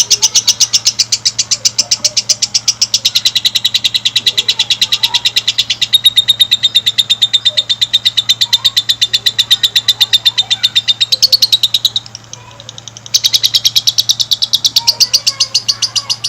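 Lovebird singing its long trilling song: a rapid, unbroken run of evenly spaced high, chattering notes, pausing once for about a second near three-quarters of the way through before carrying on.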